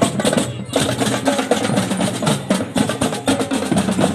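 Upbeat dance music with busy, fast drum percussion over a pitched backing; the top briefly drops out just under a second in.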